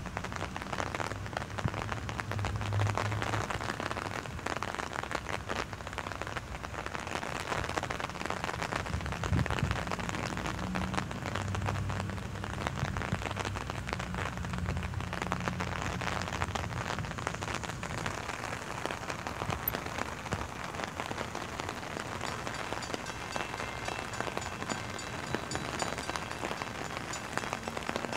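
Steady rain falling on an umbrella close by, a dense even hiss of drops, with a low rumble underneath for a stretch in the middle.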